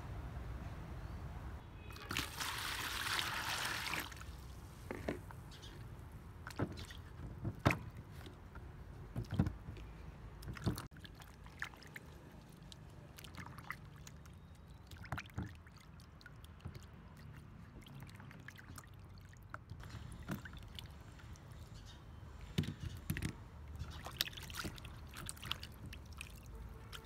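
Water splashing and sloshing in a plastic basin as peeled sweet potatoes are washed by hand, with scattered short splashes and knocks of the tubers. About two seconds in there is a loud stretch of water pouring into the basin.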